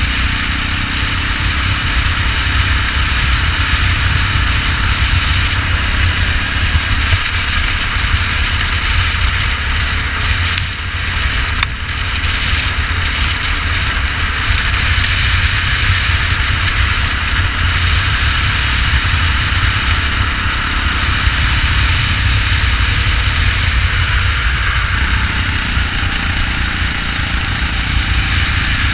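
Go-kart engine running steadily during a race, a constant rumble with hiss over it. It dips briefly about ten seconds in.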